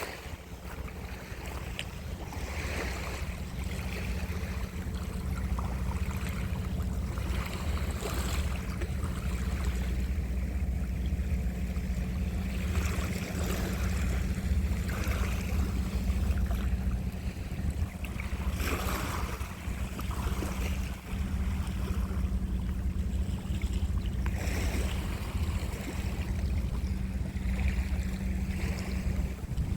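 Sea surf washing on the shore, swelling in noisy surges every few seconds, over a steady low rumble and a faint constant hum.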